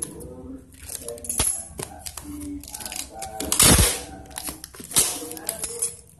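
Brown packing tape pulled off the roll and pressed onto a plastic-wrapped cardboard box, a series of sharp tearing pulls with the loudest a little past halfway.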